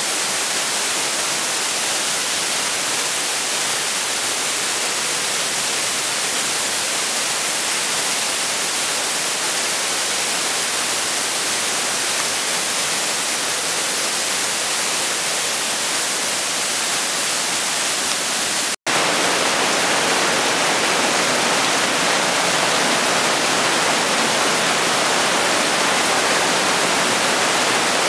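Steady rushing of a mountain torrent and waterfalls pouring through a narrow rock gorge. The sound cuts out for an instant about two-thirds of the way through and comes back slightly louder.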